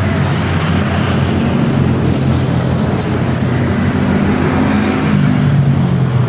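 Komatsu hydraulic excavator's diesel engine running while the machine works, its note rising and falling a little.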